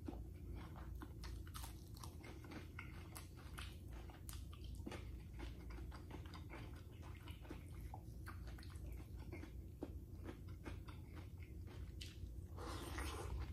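Close-up crunchy chewing and biting of fried tuyo, crisp dried salted fish, heard as a run of small irregular crunches over a steady low hum, with a denser crunch near the end.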